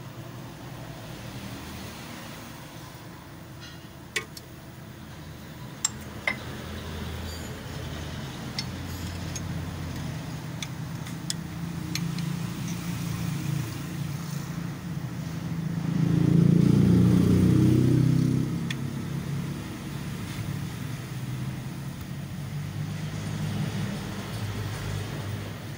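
A motor vehicle's engine running in the background, a steady low rumble that swells loudest for about two seconds just past the middle. A few sharp clicks stand out near the start.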